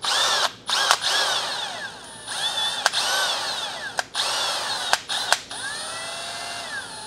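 Cordless drill spinning a chucked hex bit adapter in several short bursts. Each trigger pull brings a motor whine that rises in pitch as it speeds up and falls as it winds down.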